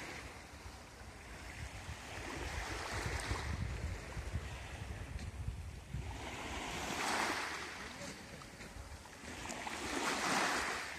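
Small sea waves washing onto a pebble shore, swelling and fading every few seconds, with wind rumbling on the microphone.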